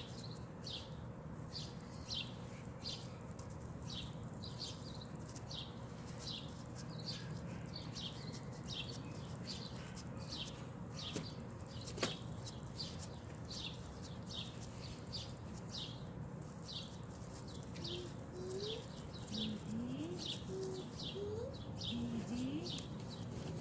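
A bird chirping over and over, short high notes that fall in pitch, about two a second, over a steady low hum. A faint voice-like sound with short rising tones comes in near the end.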